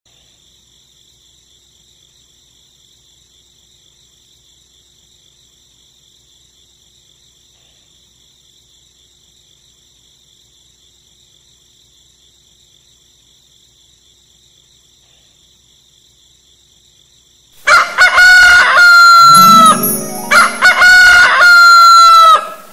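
A rooster crows twice, loud, each crow about two seconds long, beginning about three-quarters of the way through. Before that there is only a faint, steady high hiss.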